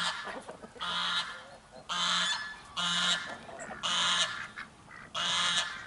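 Domestic waterfowl calling: five separate calls spaced about a second apart, each lasting under half a second.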